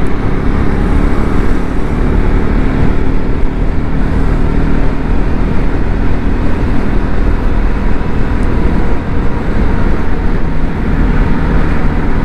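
Triumph Scrambler 400 X's single-cylinder engine running steadily at cruising speed, mixed with the rush of wind and road noise of a motorcycle under way.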